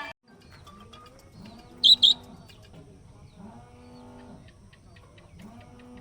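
A small pet parrot gives two sharp, high chirps in quick succession about two seconds in, over a string of quieter, lower repeated calls.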